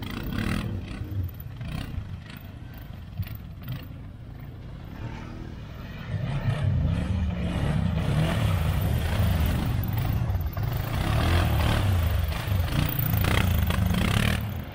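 Quad bike (ATV) engine running and revving, with a few knocks and clattering in the first seconds; the engine grows louder about six seconds in and stays working hard before it cuts off sharply near the end.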